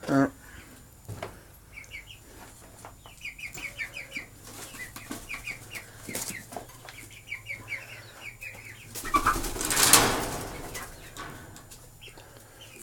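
Chicken chicks peeping in quick runs of short high cheeps, with a single loud hen call at the very start. Near the end comes a rushing burst of flapping wings.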